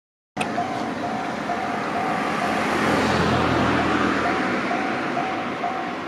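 Japanese railway level-crossing warning bell ringing in a steady electronic ding, about two a second, as the crossing signals flash for an approaching train. A car drives past over it, its tyre and engine noise rising and falling, loudest about three seconds in.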